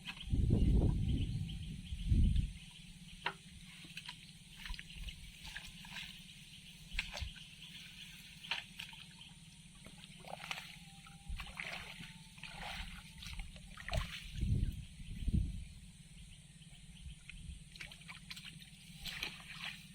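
Water trickling and dripping in many small, irregular splashes, with a few heavy low thumps in the first two seconds and twice more past the middle.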